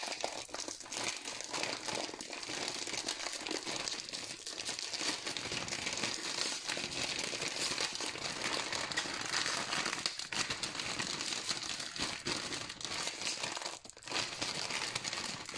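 Hard plastic noodle seasoning packet crinkling and crackling as it is handled and pulled at to tear it open, with the packet resisting.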